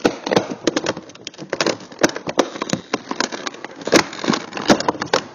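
Plastic toy packaging crackling and clicking as hands work figures out of it, in a dense, irregular run of sharp crackles.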